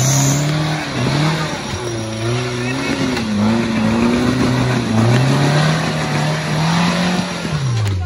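Modified off-road 4x4's engine revving hard in uneven surges under load as it climbs out of a muddy pit; the revs fall away near the end.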